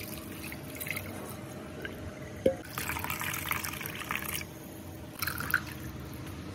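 Coconut milk splashing and dripping through a metal mesh strainer into a steel bowl as grated coconut is poured in and squeezed by hand. One sharp metallic clink comes about two and a half seconds in.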